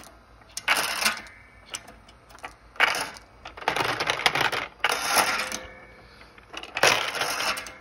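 Bullets clinking and rattling against metal as a bullet feeder's rotating orientation bowl tumbles them, in about five short bursts of clatter with quieter gaps between.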